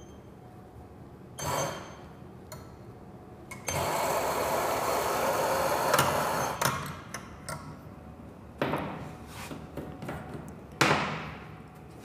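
Electric espresso grinder running for about three seconds as it grinds a dose into a portafilter. A shorter burst comes a second or so in, and two sharp knocks follow later.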